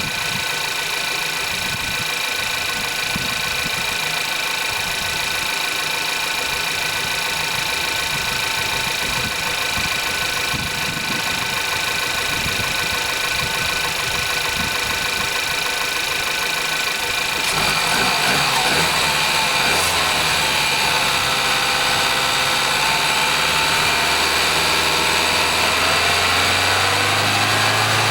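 VW-group 1.2 TSI EA111 petrol engine running at idle, the engine whose timing chain rattles at cold start because of its hydraulic tensioner. About two-thirds of the way through the sound grows louder and its tone shifts.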